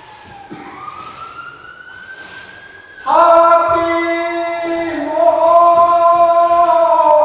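A faint tone slides slowly down and then up, then about three seconds in a Tsugaru minyo folk singer's voice comes in loudly, holding long sustained notes that shift in pitch.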